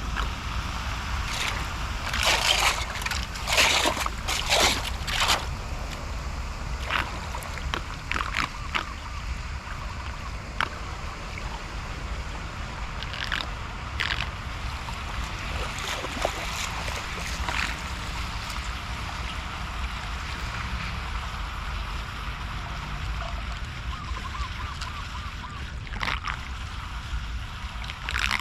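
Flood water sloshing and splashing, with a quick run of sharp splashes or knocks about two to five seconds in and scattered single ones after, over a steady low rumble.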